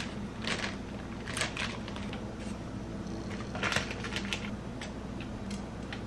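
Plastic tortilla bag crinkling and rustling in several short bursts as tortillas are pulled out of it, over a steady low hum.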